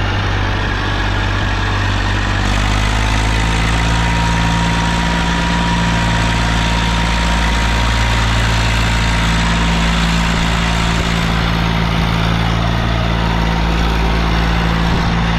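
Eicher tractor's diesel engine working hard, pulling a loaded trolley slowly up through sand. The revs step up slightly a couple of seconds in, then the engine holds a steady, even note.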